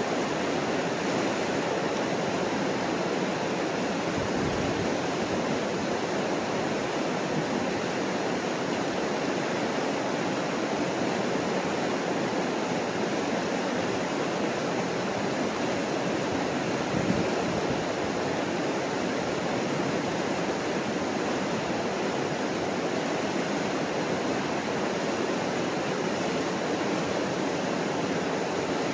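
Mississippi River white water rushing steadily over a broad rock ledge, an even, continuous wash of noise, with one brief low bump a little past halfway.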